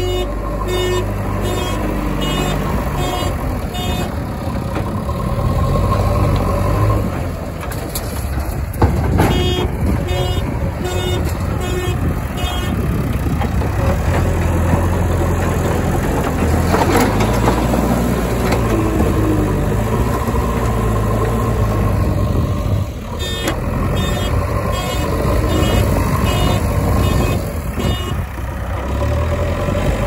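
Heavy diesel engines of a backhoe loader and tipper trucks running steadily, with a vehicle's reversing alarm beeping at about one and a half beeps a second in three spells: at the start, about ten seconds in, and again near the end.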